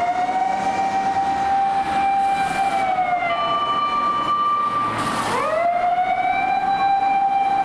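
A fire-service rescue truck's siren wailing: a long held tone that sags slightly, a higher second tone sounding with it for about two seconds, then a sharp drop in pitch a little past the five-second mark that climbs straight back up to the held tone.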